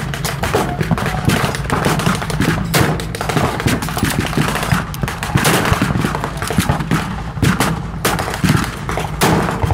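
Blank gunfire from a reenactment firefight, with M1 Garand rifles among the guns. Shots come several a second, irregular and overlapping.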